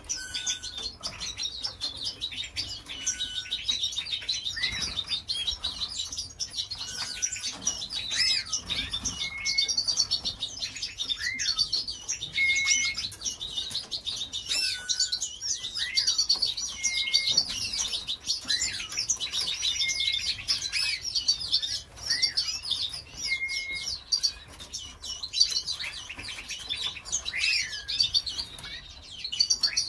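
Several caged canaries chirping and twittering without pause, mixed with short clear whistled notes and falling call notes every couple of seconds.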